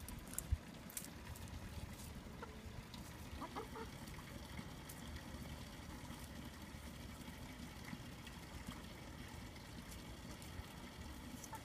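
Chickens clucking faintly, a few short clucks a few seconds in, over steady low background noise.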